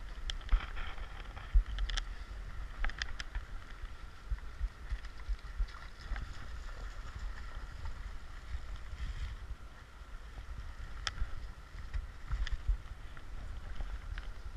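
Creek water running steadily, with a low wind rumble on the microphone and scattered sharp clicks and taps.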